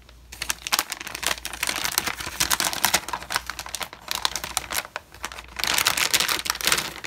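Plastic anti-static bag crinkling as a motherboard is worked out of it, with a short lull about five seconds in before a second burst.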